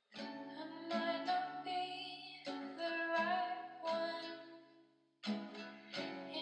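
Background music: a gentle song of plucked guitar chords, each ringing out and fading, with a short lull about five seconds in.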